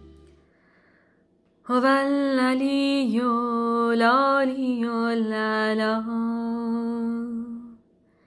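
A woman's solo voice chanting unaccompanied in Persian: one long phrase of about six seconds, held on a near-steady pitch with ornamental turns. This is the opening of a chanted Bahá'í prayer. Just before it, the last notes of instrumental music die away.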